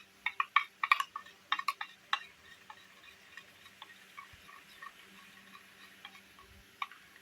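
Sharp clinks and clicks of a utensil against a bowl during slime mixing, loudest and thickest in the first two seconds, then lighter ticks about three a second.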